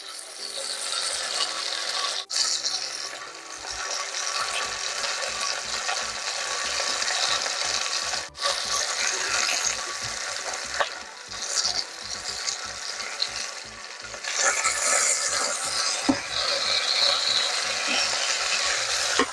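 Chuck roast searing in hot olive oil in an Instant Pot Mini's stainless steel inner pot, sizzling steadily.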